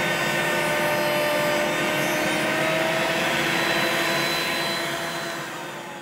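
Table-mounted router running at full speed as a coping bit cuts the end of a door-frame board clamped in a coping sled; a steady whine over a rushing noise, which dies away over the last second or so.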